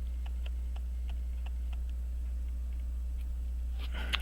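Steady low electrical hum with faint, regular ticking about four times a second, and a brief rustle of handling near the end.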